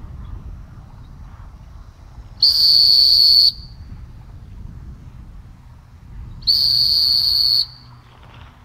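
Dog-training whistle blown in two loud, high-pitched, steady blasts of about a second each, some four seconds apart. These are long stop blasts telling a retriever to halt and look back to the handler for direction.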